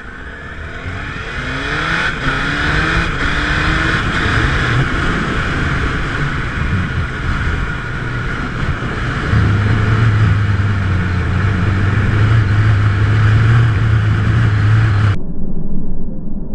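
Sport motorcycle accelerating hard through several quick upshifts, its engine note rising in steps over heavy wind rush on the bike-mounted camera, then settling into a loud, steady drone at about 80 km/h. About a second and a half before the end the sound suddenly turns muffled.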